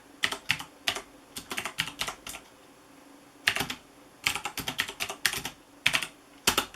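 Typing on a Corsair K95 RGB mechanical keyboard with clicky Cherry MX Blue switches: quick, irregular runs of key presses with short pauses between them, the longest pause a little before the middle.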